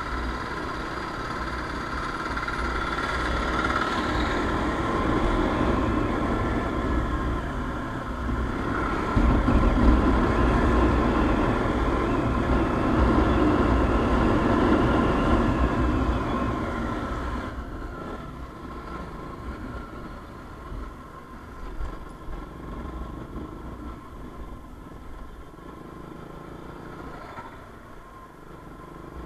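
Motorcycle riding along a street, its engine running under the rush of wind over the microphone. The sound builds through the first half and then falls away sharply about two thirds in as the bike slows.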